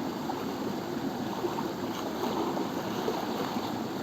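Steady rush of fast-flowing stream water, a strong current.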